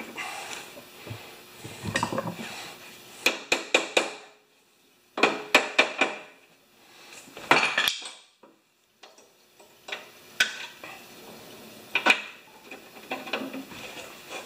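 Sharp metallic clinks and rattles of locking pliers against the steel axle parts of a Honda mower as they are worked into place. They come in short clusters of quick clicks with quiet gaps between.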